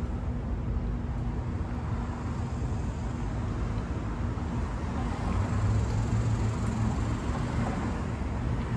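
Outdoor road-traffic background: a steady low rumble with a faint hum under it, swelling briefly about five and a half seconds in.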